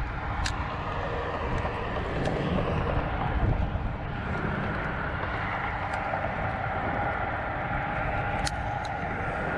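Steady wind rumble on the microphone with a faint, steady engine drone, and a few light clicks about half a second in and again near the end.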